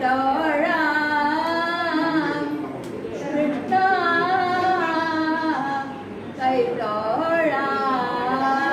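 A woman singing without accompaniment, in three long held phrases with short breaks between them.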